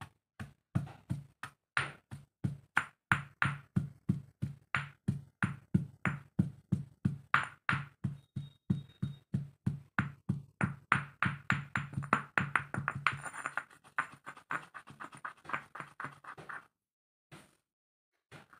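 Stone pestle pounding crumbly lumps in a stone mortar, with steady, even strikes about three a second. Near the end the strokes turn faster and lighter, then stop.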